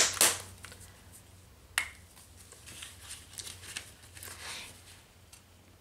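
Small plastic flip-top squeeze bottle of homemade fluid acrylic paint being handled: a short burst of shaking at the start, a sharp click about two seconds in as the flip-top cap is snapped open, then faint soft sounds as the bottle is squeezed.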